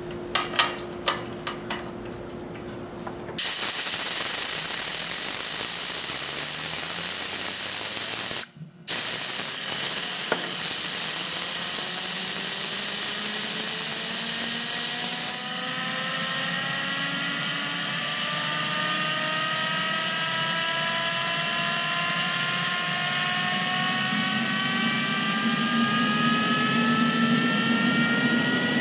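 Home-built 220 lb thrust turbine jet engine being air-started: a few clicks, then a loud rush of compressed air blown into it that stops briefly about five seconds later and resumes. From about twelve seconds in, a whine rises steadily as the turbine spools up and runs, a hot start from too much fuel flow.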